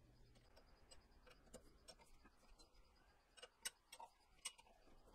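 Faint, scattered metallic clicks and ticks as a hex key is seated in and turns the radial adjustment screws of a lathe's true bore alignment plate, with a few sharper clicks between about three and a half and four and a half seconds in.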